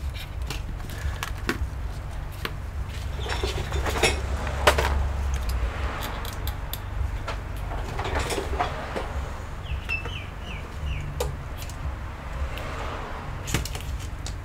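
Scattered small clicks and taps of tools and a circuit board being handled on a repair bench, over a low steady hum. About ten seconds in there is a quick run of four or five short high chirps.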